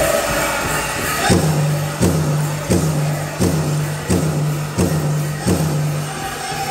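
Powwow drum group: a chorus of singing fades out, then the large powwow drum is struck alone, seven even, ringing beats about 0.7 s apart, with dancers' bells jingling on the beats. The singing comes back near the end.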